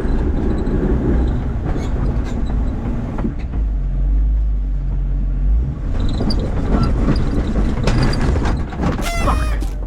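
Off-road vehicle running at low speed, a heavy low rumble with scattered knocks and clicks. Near the end comes a brief squeal that falls in pitch.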